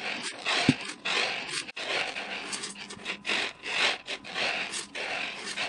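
Dry beans being swept and slid by hand across a wooden tabletop as they are picked over before cooking. They make a run of quick, irregular scraping and rattling strokes.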